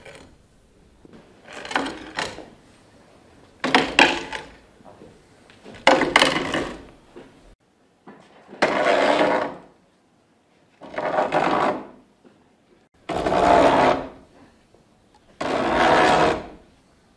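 Long hand-turned pump auger with a spoon-shaped bit scraping through the bore of an oak trunk as it is widened. Each turn of the wooden cross-handle brings a scrape of wood being shaved, seven strokes of a second or so, about every two seconds.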